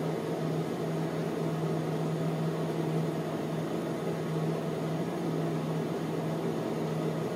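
Steady low hum of a running household appliance, one constant tone over an even hiss that does not change.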